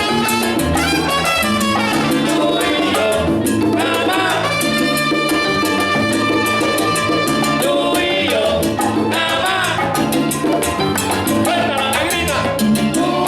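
Salsa band playing live, with percussion, bass and a full ensemble; a long held chord sounds from about four and a half to eight seconds in.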